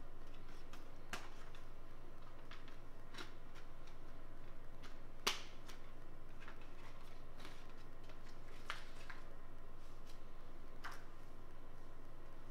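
Scattered light clicks and rustles of a steelbook disc case and its packaging being handled, the sharpest click a little past five seconds in, over a faint steady hum.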